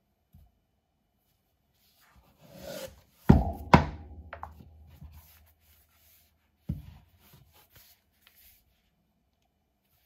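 Hands handling a tablet in its folio case: a rub, then two sharp knocks about half a second apart as the cover is folded shut against the tablet, a lighter click, and another knock near seven seconds.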